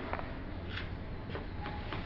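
Faint, short scratchy brushing sounds of a paintbrush dragged across a painting board, a few strokes, over a steady low background hum.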